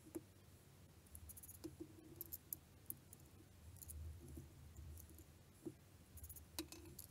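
Faint, irregular clicks and taps from a machined metal air-rifle regulator and gauge assembly being handled and fitted against its air tube.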